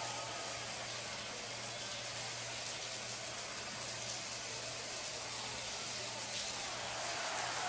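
Shower running: a steady hiss of water spray, with a low hum underneath.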